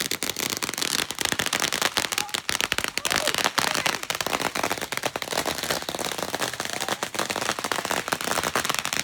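Firecrackers going off in a fast, continuous run of sharp pops and crackles.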